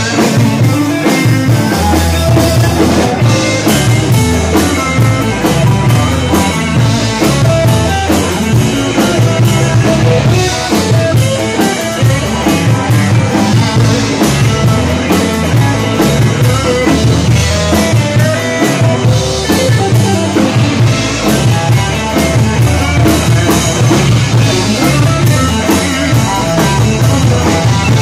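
Rock band playing live and loud: distorted electric guitars over a steady driving drum-kit beat.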